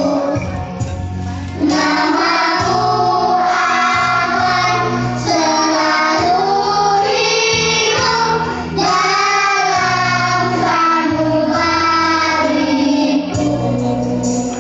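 A group of young children singing a song together into microphones over accompanying music, with a steady low bass line beneath the voices.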